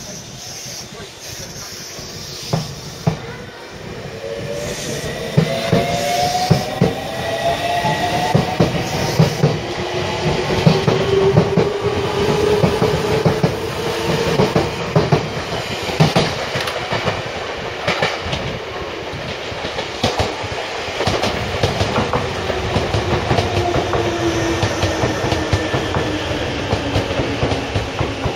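Semboku Rapid Railway 7000 series six-car electric train pulling out of a station: its traction motors whine, rising in pitch as it gathers speed, over the wheels clacking on rail joints as the cars pass.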